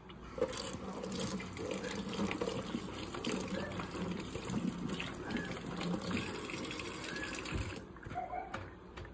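Kitchen tap running into a sink, a steady rush of water that is shut off sharply about a second before the end.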